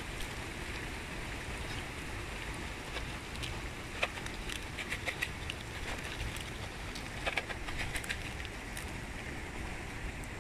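Steady outdoor background hiss with scattered quick clicks and taps, in small clusters, as geese and ducks feed at the water's edge.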